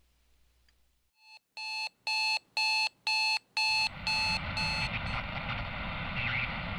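Electronic beeping: a run of about eight short, evenly spaced beeps, roughly two a second, which fade in and stop about five seconds in, with a steady hiss coming in underneath from about four seconds.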